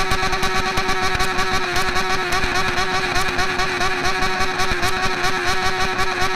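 Yamaha XJ6's inline-four engine running through a straight pipe with no muffler, held at steady high revs in a loud, even drone that wavers slightly in pitch.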